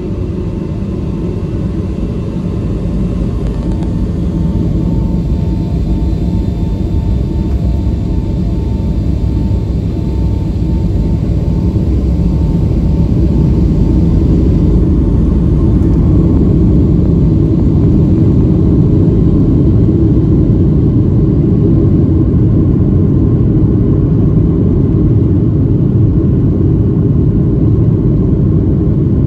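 Boeing 757-300 jet engines and rolling airframe heard from inside the cabin: a steady deep rumble that builds over the first half and then holds loud, as the airliner picks up speed on the ground for takeoff.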